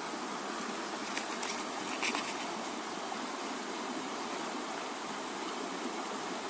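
Steady rush of flowing river water, with a few faint clicks about one and two seconds in.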